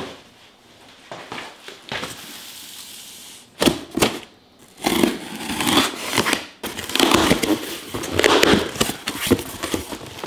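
A delivery box being opened and its wrapping handled: crinkling, rustling packaging with a few sharp knocks about four seconds in, then steady crinkling to the end.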